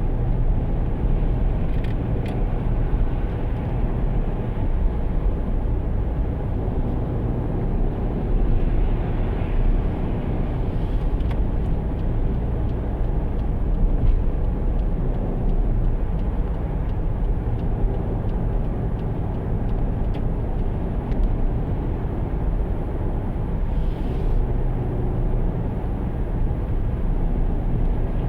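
Steady low rumble of a car in motion: engine and road noise, even throughout.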